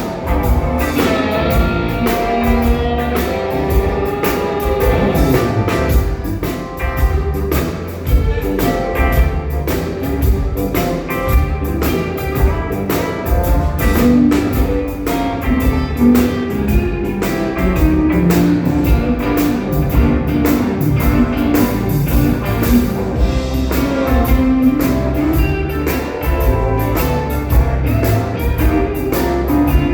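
A band playing at a sound check: guitar over a drum kit keeping a steady beat.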